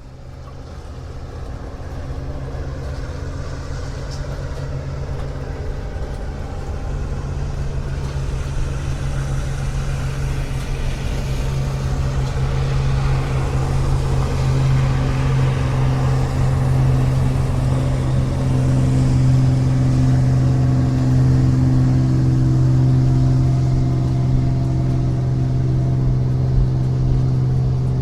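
Motorboat engine running with a steady low drone, its pitch holding level while it grows louder over the first dozen seconds and then stays loud.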